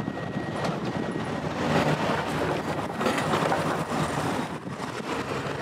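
Cars and vans driving over a railroad grade crossing close by, with tyre noise swelling twice as they pass. Behind it, a train runs on the tracks as it pulls away up the hill.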